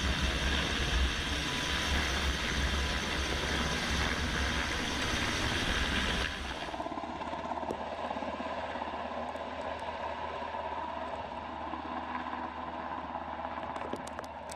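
Helicopter rotors and turbines heard close up, with heavy rotor downwash buffeting the microphone as a loud low rumble. About six seconds in it changes abruptly to a quieter, steady helicopter drone heard from farther off.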